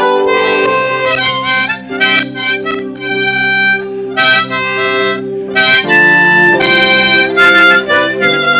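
Instrumental music with no singing: a melody of held notes over sustained chords and a steady low bass note.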